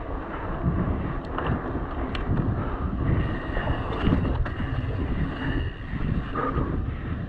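Wind buffeting a chest-mounted action camera's microphone as a mountain bike rolls fast over a muddy dirt track, with tyre and mud noise and a few sharp clicks and rattles from the bike.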